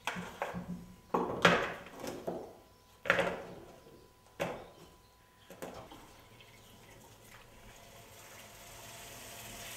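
A series of sharp knocks as slices of hard, stale bread are handled and set down, then from about six seconds in a kitchen tap runs steadily into a bowl, filling it with water to soak the bread.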